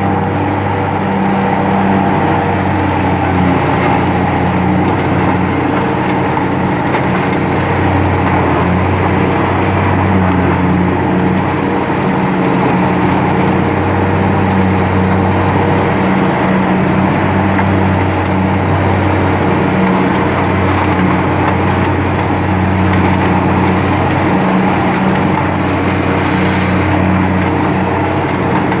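Engine running steadily at a constant speed, loud and even.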